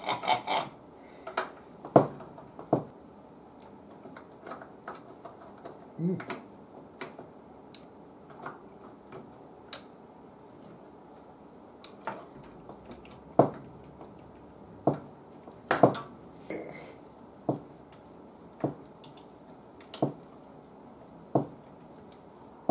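Irregular sharp clicks and light clinks of small hand tools and parts being handled while working on an old breadboard radio, scattered one every second or two, loudest about two seconds in and again about two-thirds of the way through.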